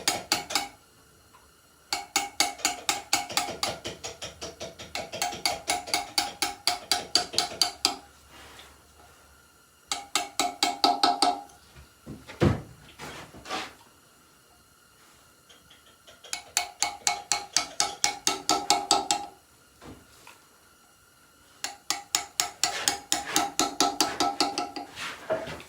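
Hammer tapping a steel chisel into a stone headstone in rapid runs of several seconds, about seven ringing strikes a second, with pauses between the runs. A single dull knock falls in one of the pauses.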